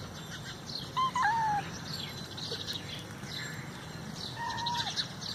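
A kitten meowing: two short high mews close together about a second in, then one longer, arching meow near the end. Faint high chirping runs in the background.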